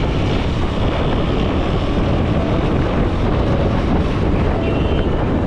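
Wind buffeting the microphone on a moving KTM Duke 250 motorcycle, a steady rushing noise with the bike's single-cylinder engine running beneath it.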